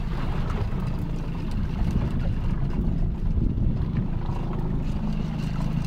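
Boat engine running steadily with a low hum, with scattered light clicks over it.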